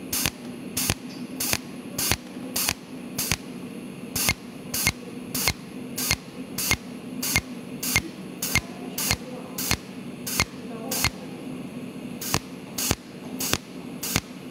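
Cold welding machine firing its tungsten torch in pulses on a perforated steel panel, each pulse a sharp snap, about one every 0.6 seconds, with two short breaks. A steady low hum runs underneath.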